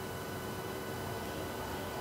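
Steady background hiss with a faint, even hum: room and recording noise, with no distinct sound.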